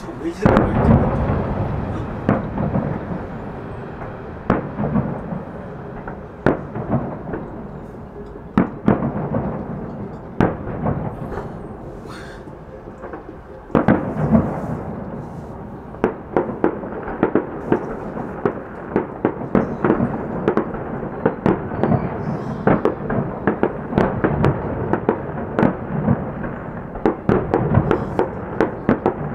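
Aerial fireworks shells bursting in a run of sharp bangs over a rolling rumble. The bangs thin out briefly a little before the middle, then a loud bang starts a denser, faster barrage through the second half.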